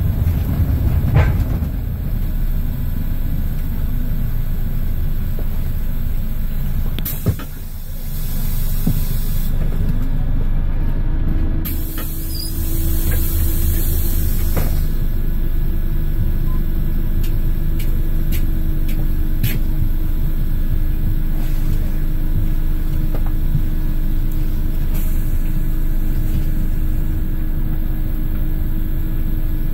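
Inside a Scania L94 city bus with its DC9 five-cylinder diesel: the engine runs throughout. About a third of the way in there is a sharp click and a short dip in level, and a few seconds later a burst of compressed-air hiss from the air brakes or door pneumatics as the bus stands at a stop. After that the engine runs on with a steady hum and a constant whine.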